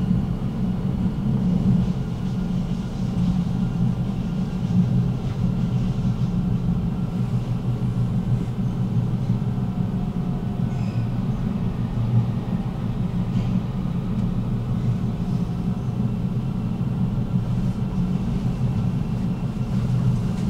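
Tram running between stops, heard from inside the passenger car: a steady low running noise of wheels on rails and running gear.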